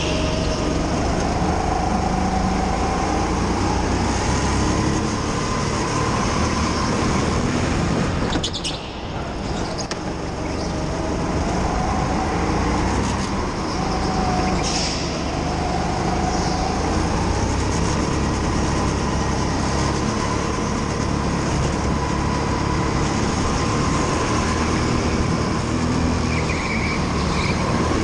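Rental go-kart heard from on board while lapping at speed, its drive note rising and falling in pitch through the corners, with a low rumble from the chassis and track. About a third of the way in the sound drops away briefly, then picks up again.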